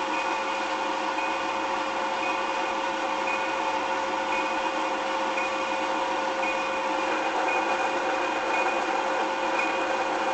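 A small motor running steadily, with a constant whine and a faint higher tone that pulses about once a second.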